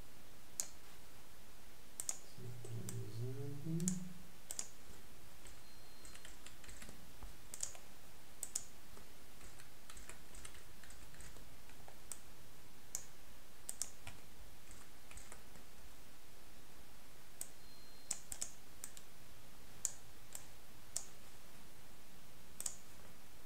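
Scattered computer mouse clicks and keyboard keystrokes, sharp and irregular, a few a second at most with gaps between them, over a steady hiss. About three seconds in, a brief low murmur of a voice rises in pitch.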